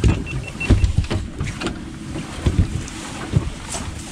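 Wind buffeting the microphone and water slapping a small fishing boat's hull, with irregular knocks and thumps from people moving about the deck and handling gear.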